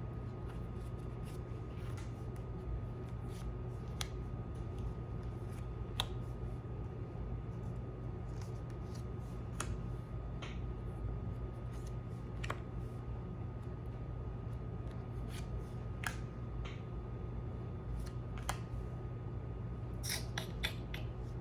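Oracle cards being drawn from a deck and laid out one by one: scattered light clicks and snaps of card stock, every second or two, over a steady low hum.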